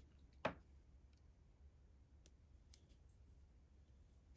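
Faint light clicks of a crochet hook working yarn over a low room hum, with one brief sharp knock about half a second in.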